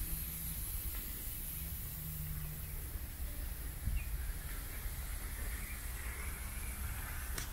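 Outdoor ambience: a steady low rumble with a constant high hiss above it, and a faint higher sound joining in the second half.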